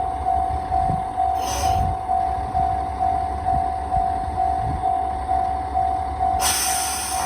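Level-crossing warning bell ringing evenly about twice a second over the low rumble of a JR Shikoku 1000-series diesel railcar's engine idling. A short hiss of air from the railcar's brakes comes about a second and a half in, and a louder, longer one starts near the end.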